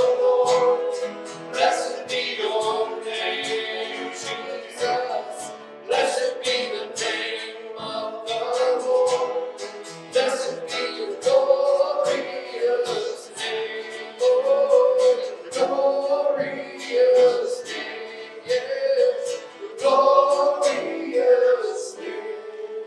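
Worship song: voices singing a melody over a strummed acoustic guitar, the music dying away at the very end.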